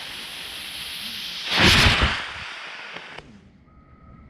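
Small firework rocket hissing, then a loud burst a little under two seconds in. The hiss cuts off suddenly about three seconds in.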